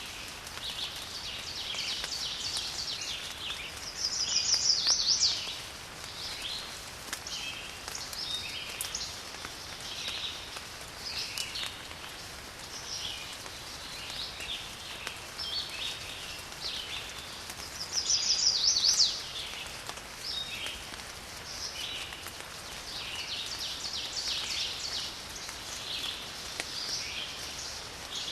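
Steady rain with many small birds calling over it. Twice, about four seconds in and again near eighteen seconds, a bird gives a louder rapid trill that stands out above the rest.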